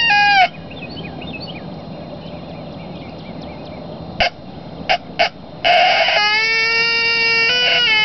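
Barnett Tribute Howler, a mouth-blown coyote howler call. A howl breaks and falls away about half a second in, then come three short, sharp yips and a rough, raspy bark, running into a long, steady howl that jumps up in pitch near the end.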